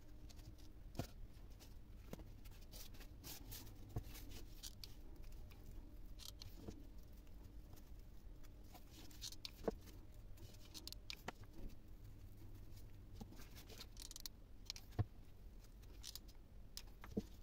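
Faint handling noises of craft work: scattered light clicks and taps as plastic container pieces and small foam roses are picked up, pressed and set down on a tabletop, over a low steady hum.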